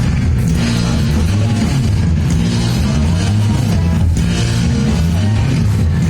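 Live rock band playing loudly, with electric guitar, bass and drums and no singing heard.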